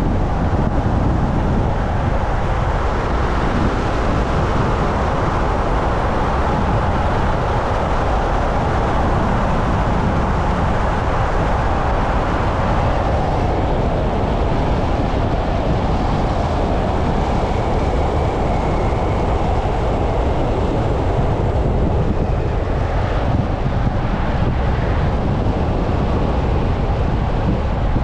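Steady road noise of a car driving: tyre rumble and wind noise on the microphone, with a strong low rumble.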